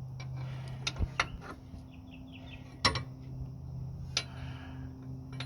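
Metal hand tools clinking: about five sharp clinks spread over a few seconds, over a steady low hum.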